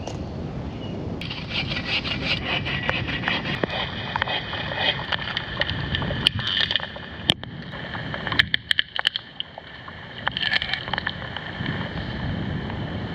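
Rustling and scraping of nylon tent fabric, with a few sharp clicks, over a steady low rumble of wind on the microphone.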